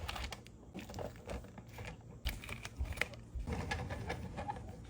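Irregular small crunches and clicks of nuts, crisp and uneven, with a few louder clicks about two and three seconds in.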